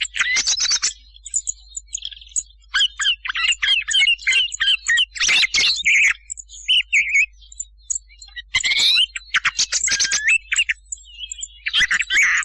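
Thrushes calling: clusters of sharp high chirps and whistled, gliding notes with short pauses between them. This is a hunters' lure recording of thrush calls, made to draw the birds in at night.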